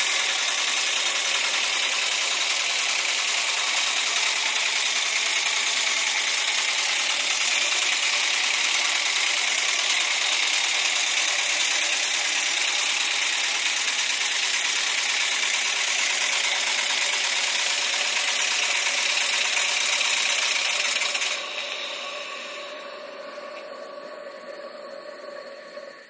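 PM Research No. 7 model steam engine running steadily under steam from a copper boiler, a loud even hiss with a fast mechanical patter. About 21 seconds in the sound drops suddenly, then dies away.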